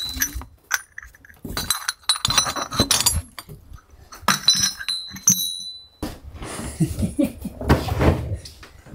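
Metal plumbing fittings (elbow joints and hose connectors) clinking against each other as they are rummaged out of a cardboard box and handled, in three short clusters of ringing clinks. Later comes a longer stretch of rustling and knocking.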